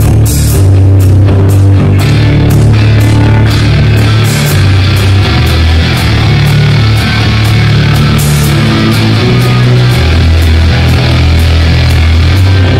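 Loud rock music with electric guitar, a drum kit hitting steadily and deep bass notes that change about once a second.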